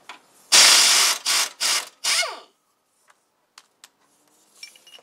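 Ratchet wrench working a fastener under a garden tractor: four quick rattling runs in the first half, the first the longest and loudest, then a few light clicks.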